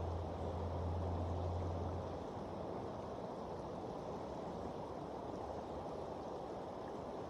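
Steady rush of flowing river water. A low hum sounds under it and stops about two seconds in.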